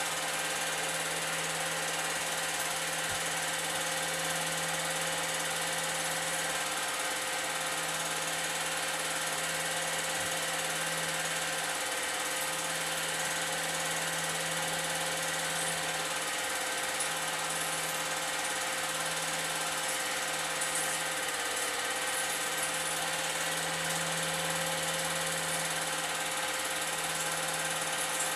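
Old 8mm film projector running, a steady mechanical whir of its motor and film mechanism with a low hum underneath.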